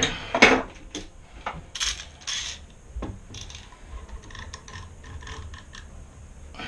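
One-handed trigger bar clamp being worked tight on a wooden table edge: a run of small ratcheting clicks, with two short scrapes about two seconds in.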